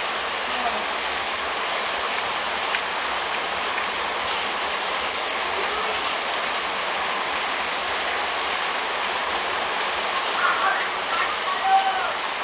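Heavy rain pouring down steadily: an even, unbroken hiss of rain falling on surfaces.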